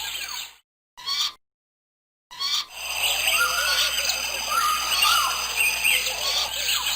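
Many birds chirping and calling together in a dense chorus, broken by two short dead-silent gaps in the first couple of seconds.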